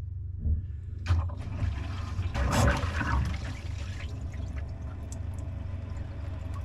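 Water rushing and gurgling through a drain pipe as it is being cleared, after a couple of knocks, loudest in a surge about two and a half seconds in and then dying down. A steady low hum runs underneath.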